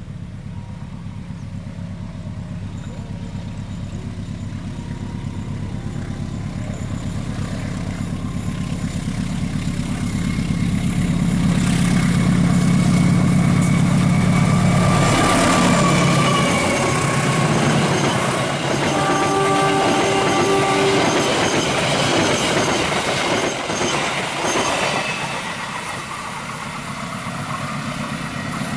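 Diesel-hauled passenger train passing at speed. The locomotive's engine drone grows louder to a peak about halfway, then drops in pitch as it goes by. The coaches' wheels then rumble and clatter past and fade as the train draws away.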